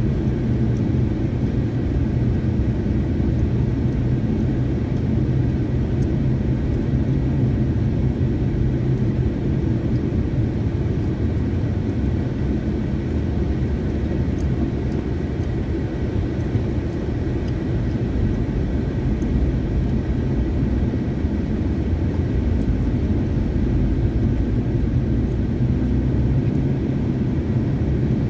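Steady low rumble of tyres and engine heard inside the cabin of a car driving along a road.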